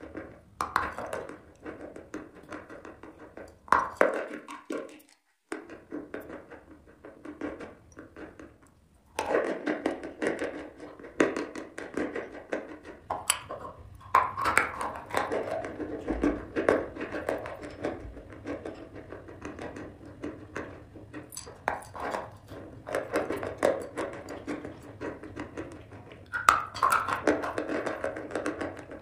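Lumps of chalk being bitten and chewed close to the microphone: a dry crunch of quick crackling bites and grinding, with a couple of short pauses between mouthfuls.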